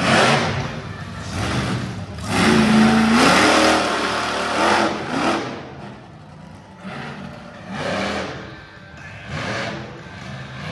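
Monster truck engine revving hard in repeated surges that rise and fall in pitch, the longest and loudest a couple of seconds in, as the truck drives and jumps over dirt mounds.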